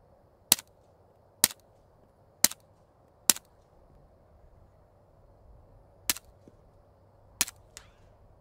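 Six suppressed 9mm pistol shots from an STI 2011 fitted with a CGS Group Kraken 9 suppressor, firing subsonic 165-grain ammunition. Four shots come about a second apart, then two more after a pause of nearly three seconds.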